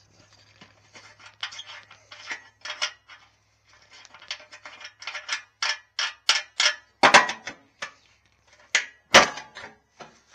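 Metal parts being handled and knocked together: irregular clinks and clanks, with two louder knocks about seven and nine seconds in.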